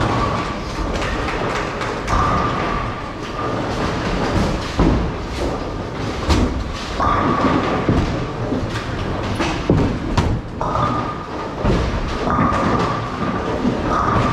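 Bowling alley din: bowling balls rumbling down the lanes and pins clattering, with many sharp knocks throughout and a high steady tone that comes and goes several times.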